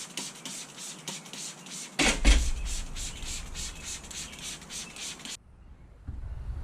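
Fast back-and-forth rubbing or scrubbing strokes on a surface, about five a second, stopping suddenly near the end.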